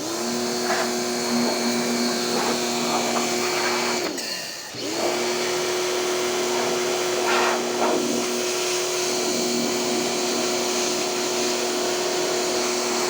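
Motor-driven cleaning machine running with a steady whine over a rushing hiss. It cuts out about four seconds in, its pitch falling as it winds down, then starts again under a second later and runs on steadily.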